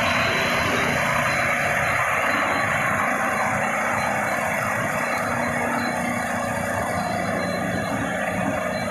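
Running machinery of a snack production line: a steady mechanical noise with a faint high whine held throughout.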